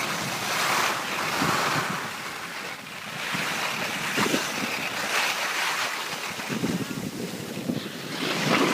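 Wind rushing over the microphone and skis hissing over packed snow, rising and falling in uneven surges.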